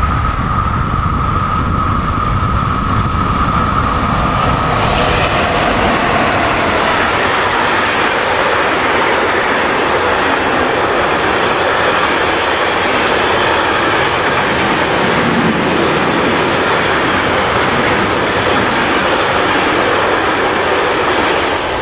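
A long freight train of covered hopper wagons passing close by behind two electric locomotives running in tandem. A steady high whine sounds for the first few seconds, then the steady noise of the wagons' wheels running on the rails fills the rest.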